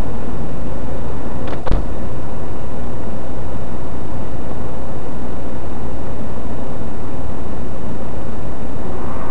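Steady engine and cabin noise of a Pontiac Sunfire standing idle, picked up loud and close by a dashcam microphone, with one sharp knock nearly two seconds in.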